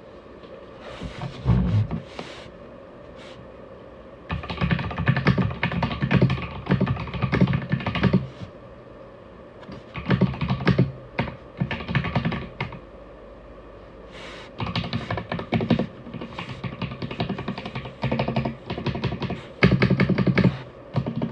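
Aigo Darkflash GD100 mechanical keyboard being typed on: rapid runs of key clicks lasting a few seconds each, broken by short pauses.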